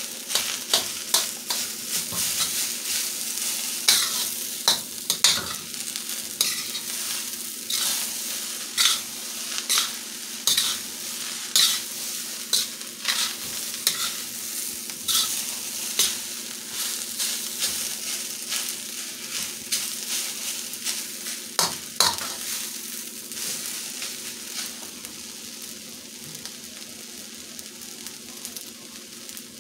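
Fried rice sizzling in a hot steel wok while a metal spatula scrapes and clacks against the pan about once a second as the rice is stir-fried. The scraping stops a few seconds before the end, leaving the steady sizzle.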